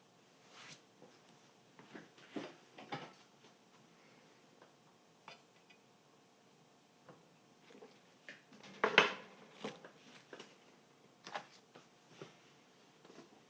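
Scattered taps, clicks and light knocks of tools and speaker parts being handled during a speaker foam-surround repair, a few seconds apart, the loudest a short knock about nine seconds in.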